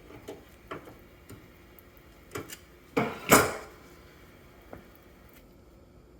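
A few light clicks and knocks of hard objects being handled, with two louder clunks close together about three seconds in.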